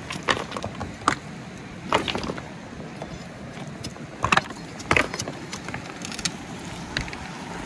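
Mountain river water rushing steadily over rocks, with a few sharp clicks and knocks scattered through it.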